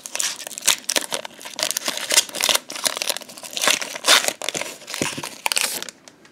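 A foil Pokémon Hidden Fates booster pack wrapper being torn open and crinkled by hand, a dense run of irregular crackles that stops near the end.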